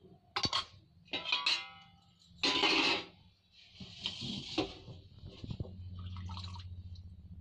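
Boiled black chickpeas and hot masala in an aluminium pot, bubbling and spluttering while being worked in, in a series of short scraping, splashing bursts with some metallic ringing. The loudest burst comes about two and a half seconds in.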